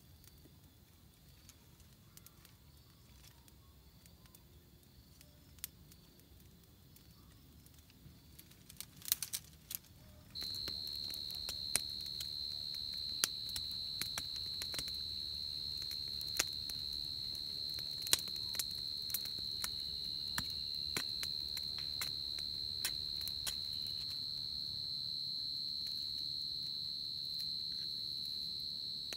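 Twig campfire crackling with sharp scattered pops. About ten seconds in, a steady high insect drone sets in and holds.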